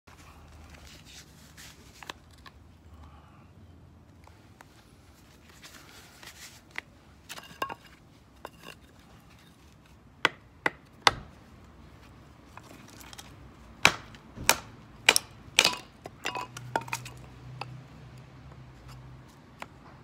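Firewood being split into kindling by hand with a tool: quiet handling and small knocks at first, then sharp knocks of blows on the wood, three about halfway through and a faster run of four or five soon after.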